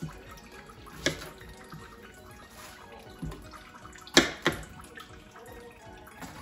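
Kitchen knife slicing through an eggplant onto a plastic cutting board: four separate sharp knocks of the blade on the board, the loudest about four seconds in. Quiet background music runs underneath.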